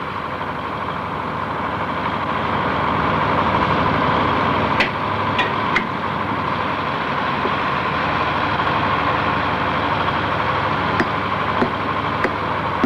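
Heavy construction machinery engine running steadily, with a few sharp metallic knocks about five seconds in and again near the end.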